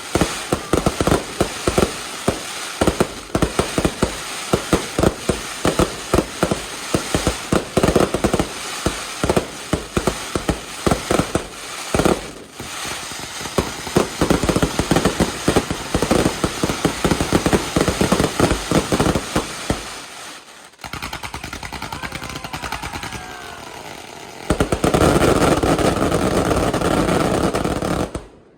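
Fireworks going off in a rapid, dense barrage of bangs and crackles. After about twenty seconds the separate bangs give way to a continuous loud crackling hiss, which cuts off suddenly near the end.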